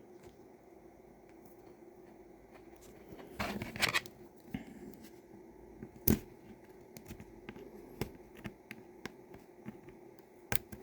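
Small plastic clicks and scraping as the clips of a Cherry MX Blue keyboard switch housing are pried at, with a short run of scraping clicks about three and a half seconds in and a single sharp click about six seconds in.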